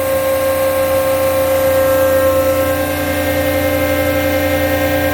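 Rexroth AP2D25 hydraulic piston pump running on a test bench at about 1780 rpm: a steady whine with several fixed pitches over a low hum, pumping its A loop under test.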